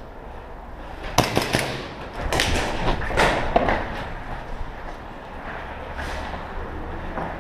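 A series of sharp knocks and clacks: three quick ones about a second in, more in short clusters around two and three seconds in, and a single one near six seconds.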